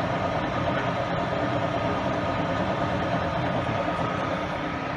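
Weiler Commodor lathe running with its spindle turning: a steady machine hum with a few constant whining tones, as the chuck's runout is checked with a dial test indicator.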